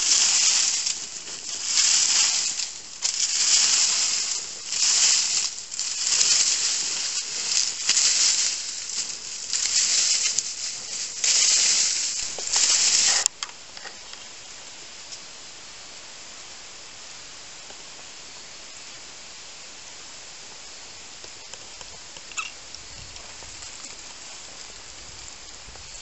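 Dry fallen leaves being swept and scraped aside in repeated strokes, about one a second, as the leaf litter is cleared from around a fire pit. Halfway through the strokes cut off abruptly, leaving a faint, steady outdoor hiss.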